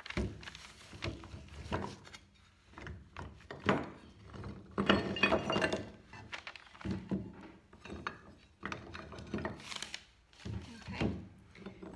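Plaster piece-mold sections being taken apart by hand: irregular clunks and clinks as the hard pieces knock against each other and are set down on the table.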